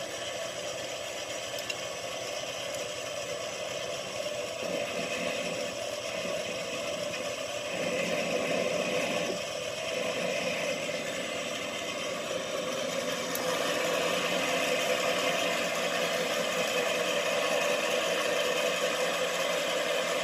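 Metal lathe running, its cutting tool taking a smoothing cut across the end of an aluminium bar; the cutting grows louder about eight seconds in and again about fourteen seconds in.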